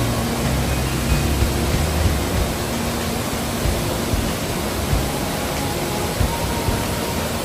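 Steady rushing of a large waterfall, the 43-metre Pulhapanzak falls, with faint music under it.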